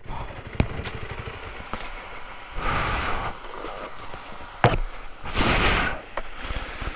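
Single-cylinder engine of a Honda CRF300L Rally dual-sport motorcycle running at low revs while the bike picks its way through deep snow. Two sharp knocks, about half a second in and again past the midpoint, and two short rushes of hiss break in over it.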